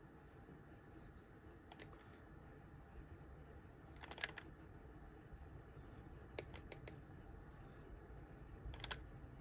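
Faint, light clicks and taps from painting supplies being handled at a pan watercolor palette, in small clusters every couple of seconds, over near silence.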